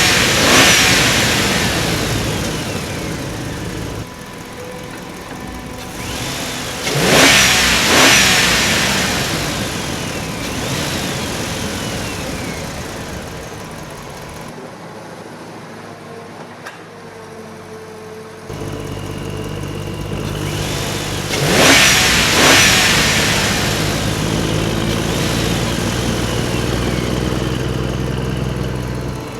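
Engine-like running sound that surges loud three times, about a second in, around seven seconds in and around twenty-one seconds in. It also changes abruptly at several points, as if cut.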